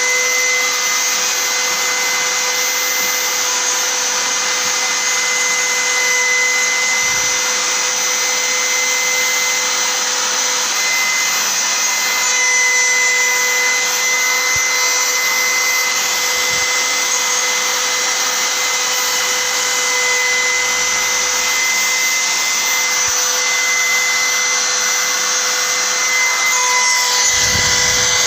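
CNC router spindle running steadily through a finishing pass: a constant whine over a broad cutting hiss, with no change in pace.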